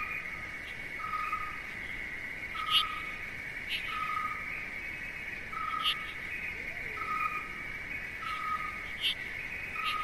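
Nature ambience: a steady high insect trill, with a short single-note call repeating about once a second and a few sharp clicks now and then.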